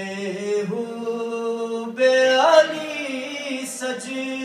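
A man's unaccompanied voice singing a manqabat, an Urdu devotional poem, in long drawn-out notes. About two seconds in the voice gets louder and glides up in pitch, then settles back.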